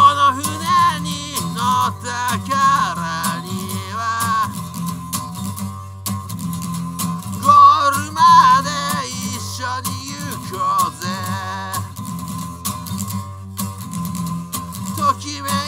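A man singing in Japanese while strumming an acoustic guitar, with gaps between sung phrases where only the guitar chords carry on.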